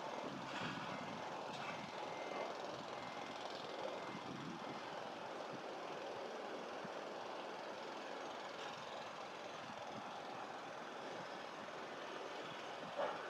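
Steady, even rumble and hiss of a station approach as an E7 series Shinkansen train runs in slowly toward the platform. A short sharp sound near the end.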